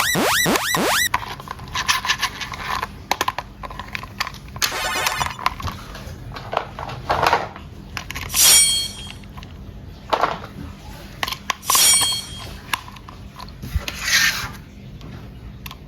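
Toys being handled: scattered clicks and knocks, with a few short ringing chimes. A quick run of rising electronic sweeps ends about a second in.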